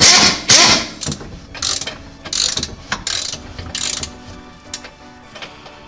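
Hand ratchet wrench turning out a 17 mm bolt on the rear differential brace. A loud run of rapid clicks in the first second, then shorter ratcheting strokes about every three-quarters of a second that fade out about four seconds in.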